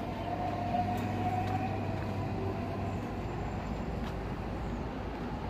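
Steady low rumble of vehicle traffic, with a faint whining tone that drifts slightly lower and fades over the first couple of seconds.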